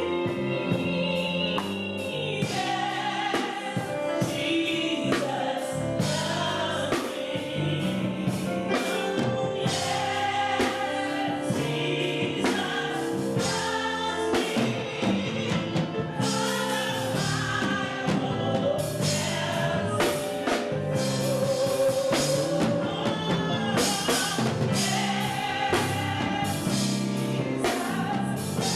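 Gospel music: voices singing over a band with a drum kit keeping a steady beat.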